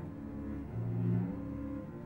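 Cello bowing slow, sustained low notes, the pitch stepping up to a louder note about a second in and back down.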